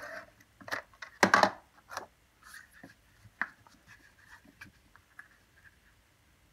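Cardstock being handled on a craft mat: scratchy rustles, rubs and light taps as adhesive is run along a paper panel and the panel is laid onto the card base and pressed down. The sounds are loudest in the first couple of seconds and then thin out to faint taps.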